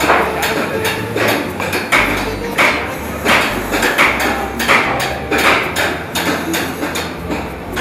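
Hammer blows on construction work, struck repeatedly at an irregular pace of about one to two a second over a low steady hum.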